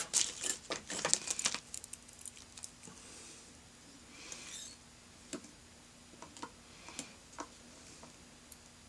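Small sharp clicks and taps of fly-tying tools and materials being handled at the vise, a quick cluster in the first second or so, then a few scattered single clicks.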